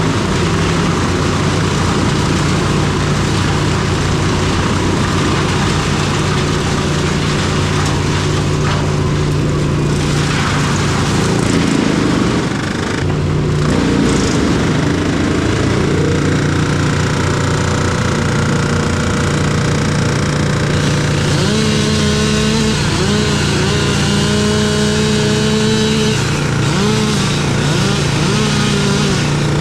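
Engine-driven tree-work machinery running loudly, its engines revving up and down several times near the end.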